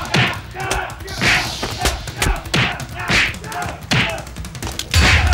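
Fistfight sound effects: heavy thuds of punches and bodies about once a second, mixed with men's grunts and shouts. The loudest, deepest thud comes near the end.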